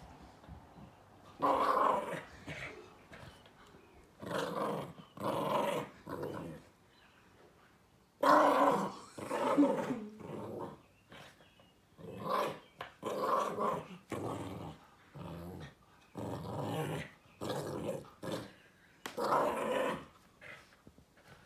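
Small chihuahua–silky terrier mix dog growling in play as it tugs and shakes a plush owl toy: about a dozen short growls with pauses between.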